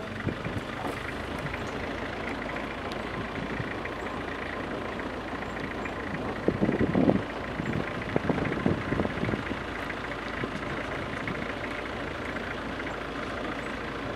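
A vehicle engine idling steadily, with louder low bursts of noise a little past the middle.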